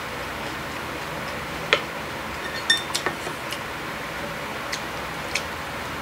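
Chopsticks and a spoon clicking against a stainless pan and dishes: a handful of short, irregular clicks, one ringing briefly, over a steady hiss.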